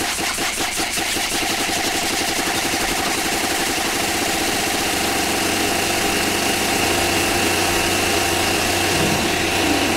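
Hard dance music played over a club sound system: the kick drum beat drops out about a second in, leaving a sustained buzzing synth drone with a high held tone.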